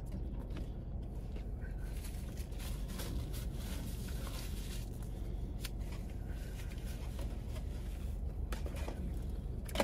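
Steady low rumble in a car's cabin, with a few faint clicks and rustles.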